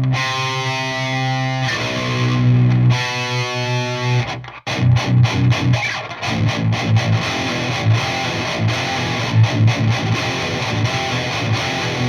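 Distorted 7-string electric guitar played through an amp: three held chords, then after a short break about halfway in, a fast chugging riff of short, clipped low notes.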